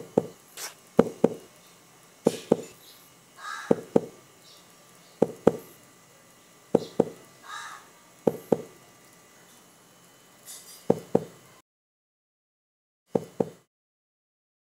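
Short, sharp knocks in pairs, about a fifth of a second apart, repeating roughly every one and a half seconds like a slow heartbeat. They drop out for about a second and a half near the end, then one more pair comes.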